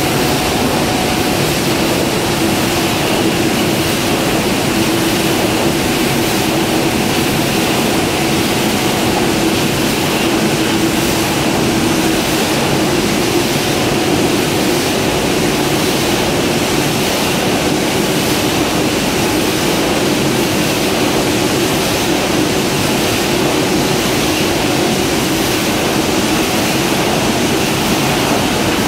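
Crabtree tinplate printing line running: a loud, steady machine din with a low hum underneath, from the press, conveyors and sheet handling working continuously.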